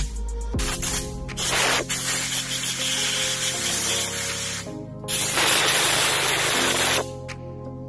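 Compressed-air blow gun hissing in repeated bursts as it blows dust and grit out of an angle grinder's cast aluminium gear head. The longest burst lasts about three seconds, and the last one stops sharply about seven seconds in.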